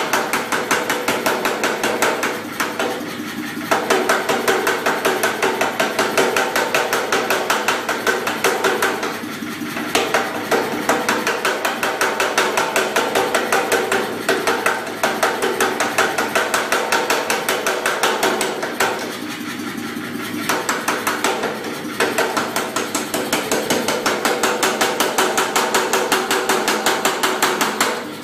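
Pneumatic power hammer forging a red-hot bar, its ram striking in rapid blows about four a second. The blows stop briefly a few times.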